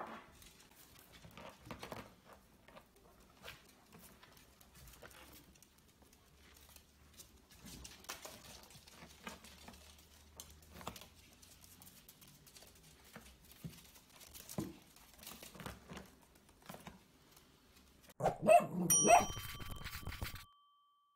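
Faint light clicks and scuffles of a Yorkshire terrier puppy and ferrets scampering on a wooden floor. About eighteen seconds in, a much louder short outro jingle with bell-like dings starts, then cuts off sharply.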